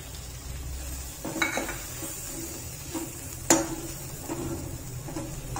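Steel ladle stirring and scraping fried tomatoes and rasam powder in an iron kadai, with a light sizzle of frying. There are a few knocks of the ladle on the pan, and one sharp clink about three and a half seconds in.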